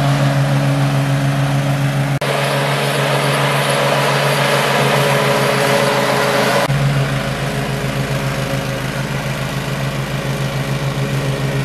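Ariens IKON X 42 zero-turn mower running with its blades engaged, cutting grass: a steady engine hum with the whir of the deck. It turns closer and brighter from about two seconds in until nearly seven seconds in.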